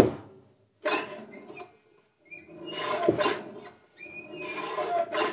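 A lever-arm guillotine paper cutter's freshly sharpened blade shearing through paper, cutting the burr off the new edge. Each stroke is a rising rasp that ends in a sharp snap; it comes about three times, with high squeaks before each cut and a knock about a second in.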